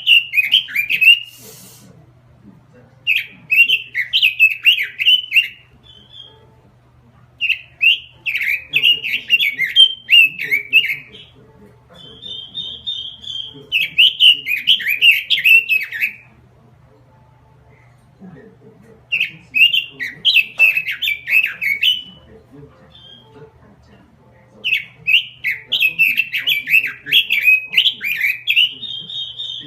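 Pekin robin (red-billed leiothrix) singing vigorously: about six loud, fast warbling phrases, a few led in or closed by a short held whistle, with short pauses between them. A faint steady low hum runs underneath.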